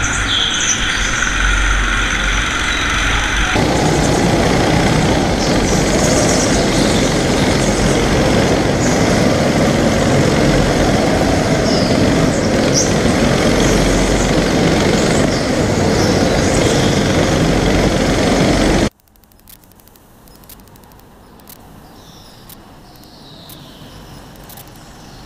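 Go-kart racing heard through an onboard camera: a loud, steady din of kart engine and rushing air, with a high whine over it in the first few seconds. It cuts off abruptly about 19 seconds in, leaving the fainter sound of karts running around the indoor track, growing a little louder near the end.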